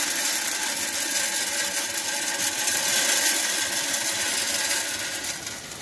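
Hardwood pellets pouring from a bag into a pellet grill's hopper: a steady rushing rattle of many small pellets landing on the grate and on each other, tapering off near the end.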